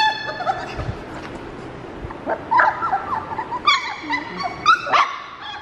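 Three-week-old Labrador puppies whimpering and yipping in short, high-pitched squeals, a few at first and then several overlapping about halfway through.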